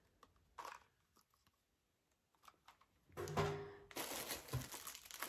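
Near silence for about three seconds, then packaging crinkling and rustling as it is handled, starting about four seconds in.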